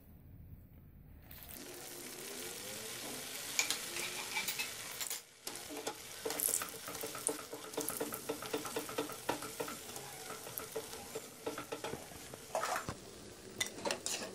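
Bread-coated chicken and potato balls deep-frying in hot oil in a wok: a steady sizzle with crackling, starting about a second and a half in. Occasional sharp clicks come from metal tongs and a slotted spoon knocking against the pan as the balls are turned.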